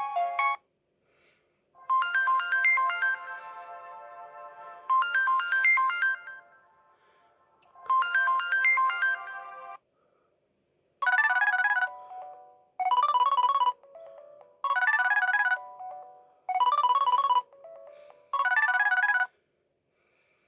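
LG T370 mobile phone ringtones playing one after another. One tune ends in the first second; a short melodic phrase then repeats three times, about three seconds apart. After a brief pause a different tune comes in five short bursts, about two seconds apart.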